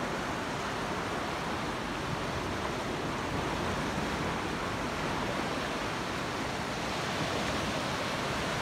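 Steady wash of sea waves on the shore, an even rushing noise that stays level throughout.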